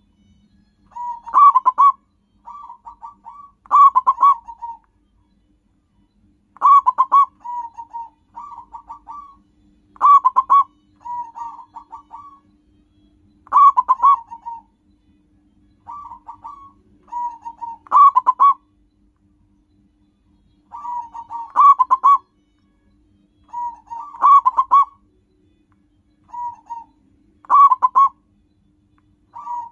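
Zebra dove (perkutut) singing its cooing song: a quick burst of clipped coos followed by softer trailing notes, repeated about every three to four seconds.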